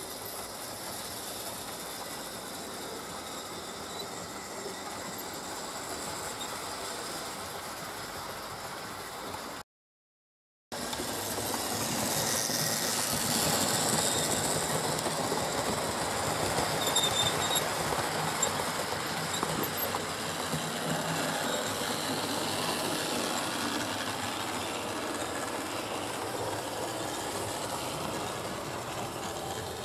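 Model railway locomotives and goods wagons running on the layout's track: a steady running noise of small electric motors and wheels on the rails. It breaks off for about a second about ten seconds in, then comes back louder.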